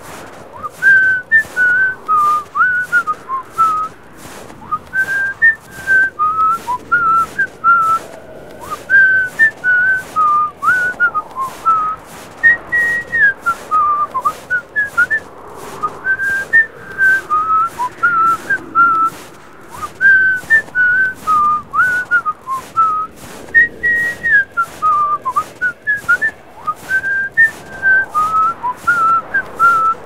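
A person whistling a bouncy, looping tune in short hopping notes, over a steady click about twice a second.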